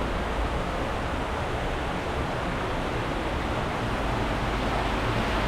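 Steady rushing of water from a waterfall inside a cave, with a low rumble underneath.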